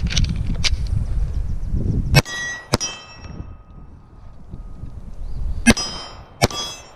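Gunfire on steel targets: bullets striking steel plates, each hit ringing out with a metallic clang. Four loud strikes come in two pairs, about two seconds in and again near the end, with fainter cracks just after the start.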